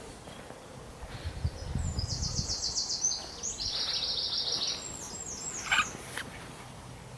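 A small songbird singing one long, fast song of high, rapidly repeated trills lasting about four seconds, with a short loud downward-sliding note near its end.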